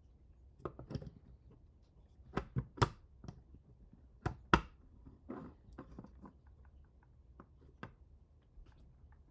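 Scattered clicks and knocks of small parts and tools being handled during a 3D printer assembly. The loudest are a quick cluster of sharp knocks about two and a half seconds in and two more about four and a half seconds in.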